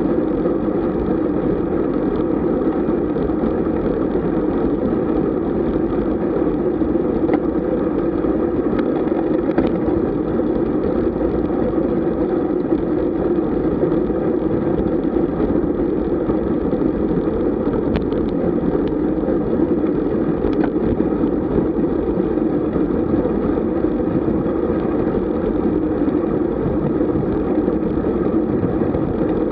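Steady rush of wind and road noise on the microphone of a camera moving with a road bicycle at riding speed, with a few faint ticks.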